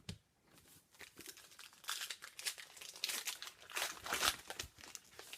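Plastic-foil wrapper of a hockey card pack crinkling and tearing as it is opened, in dense irregular crackles that are loudest in the middle.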